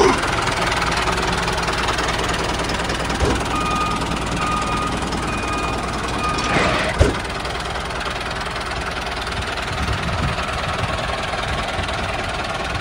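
Tractor engine running steadily with a knocking chug. A few short high beeps sound partway through, and a knock comes about seven seconds in.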